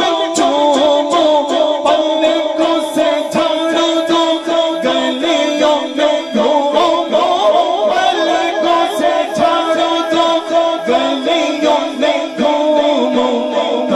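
A man singing a Punjabi naat through a microphone and PA, his melody winding and ornamented. A steady, fast rhythmic beat runs behind the voice.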